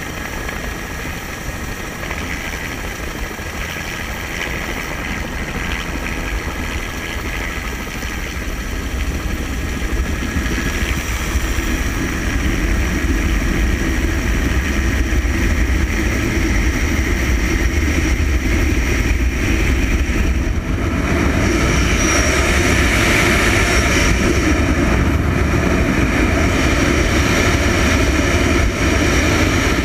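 Helicopter in flight, its engine and rotor running steadily and slowly growing louder, with a further rise about two-thirds of the way in as it climbs away and flies on.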